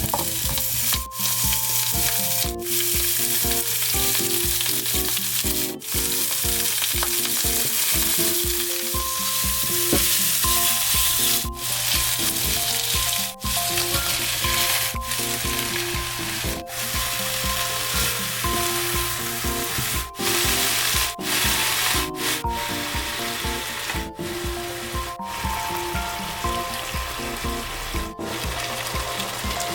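Food sizzling as it fries in oil in a pan, a dense steady hiss that briefly breaks off several times, with light background music over it.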